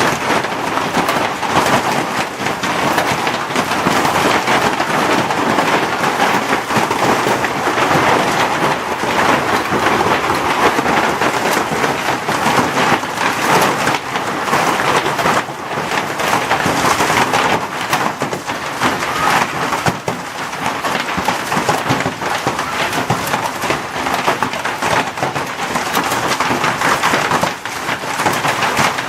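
Hailstorm: a loud, steady, dense clatter of hailstones pelting down.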